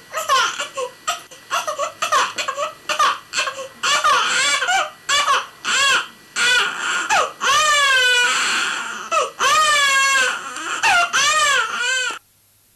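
A baby crying: a string of loud wailing cries, each rising and falling in pitch, with short gasping breaks between them. It cuts off suddenly near the end.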